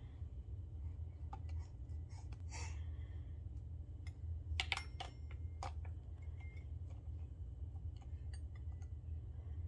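Baby tapping the metal bars of a toy pull-along xylophone with a plastic mallet: a few scattered light taps, the sharpest strikes coming about halfway through and ringing briefly. A low steady hum runs underneath.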